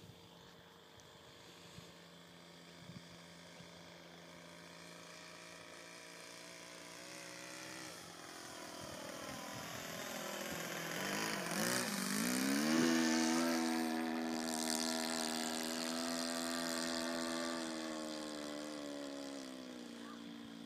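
Small model-aeroplane engine and propeller buzzing in flight, growing louder as the plane flies close by. Its pitch dips and swings about halfway through, then it steadies and fades as the plane flies off.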